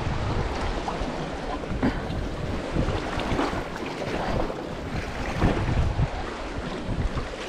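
Greenland paddle blades dipping and splashing alongside a sea kayak, a splash every second or so, over steady wind noise on the microphone.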